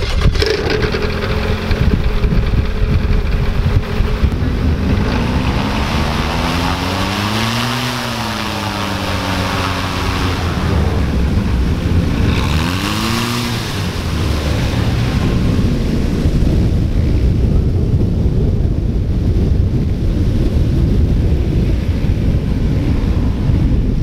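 Propeller-driven light kit plane running on the ground and taxiing, its Viking engine (a converted Honda car engine) and propeller giving a steady drone. The engine pitch swells up and falls back twice, about a third of the way in and again just past the middle. Wind buffets the microphone throughout.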